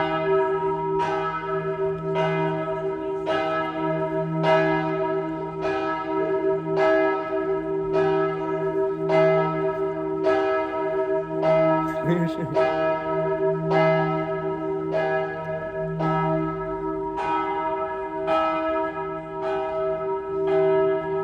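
Church bells ringing in a steady peal, a fresh strike roughly every second, their deep tones ringing on between the strikes.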